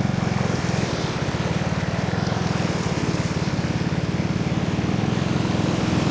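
Motorcycle engine running steadily at low revs, with a fast, even pulsing beat.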